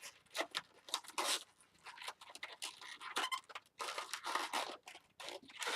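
Latex twisting balloons rubbing and squeaking against each other as one balloon is worked through the others. The sound comes as a run of irregular scrapes and crinkles, with a few short squeaks about three seconds in.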